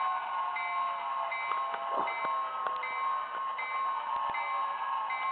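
HO-scale Santa Fe model diesel locomotive's sound unit ringing its bell, a ding repeating a little faster than once a second over a steady hum, with scattered sharp clicks.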